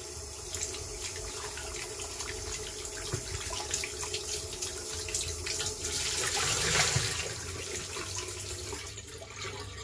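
Water running and splashing in a glass bowl as cut potato wedges are rinsed by hand, with the wedges clicking against the glass. The splashing grows a little louder about two-thirds of the way through.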